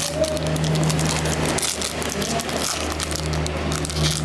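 Foil trading-card pack wrapper crinkling and crackling as it is handled and pulled open, over a steady low hum.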